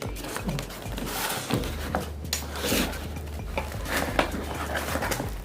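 Packaging being handled and opened: irregular crinkling, rustling and small clicks of a parcel's wrapping, with a steady low hum under it from about a second and a half in.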